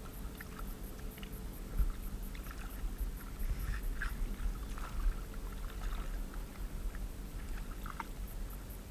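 Paddle strokes in water from a small human-powered boat: irregular light splashes and drips over a low rumble of water and wind on the microphone.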